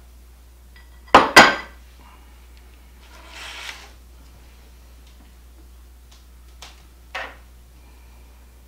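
A serving spoon knocking against a dish twice in quick succession about a second in, a softer scrape in the middle, and a tick and a lighter knock later on: mashed potatoes being served from a bowl onto a plate.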